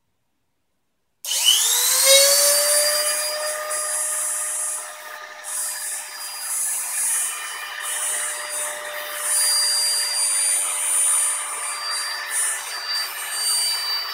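ShapeOko's original rotary-tool spindle switched on at maximum RPM about a second in: it spins up within a fraction of a second to a steady, loud, high-pitched motor whine and holds there.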